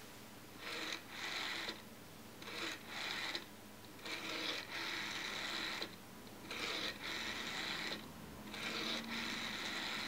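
Vintage telephone rotary dial turned and released about five times in a row. Each turn is a whirring burst of one to two seconds as the dial winds and spins back under its spring and governor, clicking out one digit.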